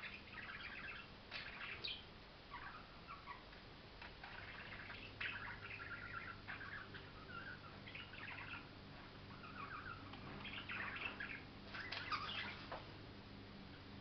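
Budgerigar warbling and chattering quietly, in short runs of scratchy chirps with pauses between them and a few sharp ticks.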